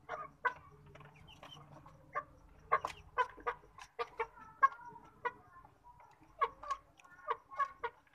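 Chicken clucking: a string of short, sharp clucks at irregular intervals, two or three a second at times.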